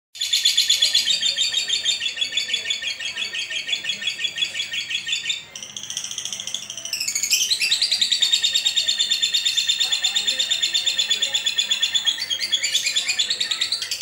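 Lovebird chirping in a rapid, steady stream of high chirps, several a second. About halfway through it goes quieter with a short gliding call, then the fast chirping picks up again.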